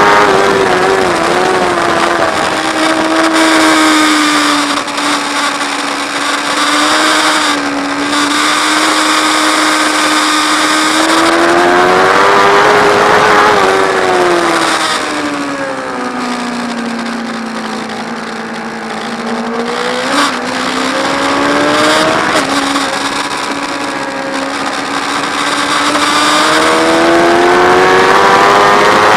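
Onboard sound of a track motorcycle's engine at high revs under speed. It holds a steady high note for most of the first half, falls away for several seconds around the middle as the bike slows for a corner, then climbs steadily again near the end as it accelerates out.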